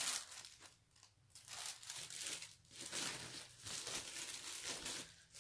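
Clothes being pulled out and unfolded: a run of rustling, crinkling swishes of fabric being handled.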